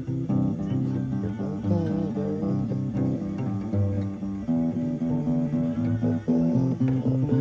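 A guitar being played: a continuous run of plucked notes and chords, trying out the sound of a new guitar.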